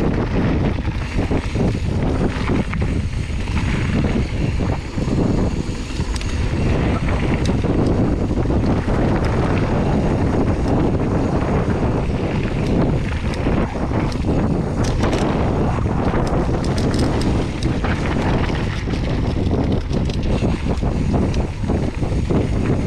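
Wind buffeting an action camera's microphone, mixed with the rumble of mountain bike tyres on a packed-dirt trail and the rattle of the bike over bumps. A run of sharper clicks and clatters comes about two-thirds of the way through.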